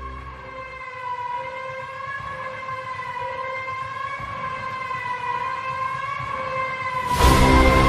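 Background music: a single held tone that wavers slowly in pitch, then the full track with a heavy low beat comes back in loudly about seven seconds in.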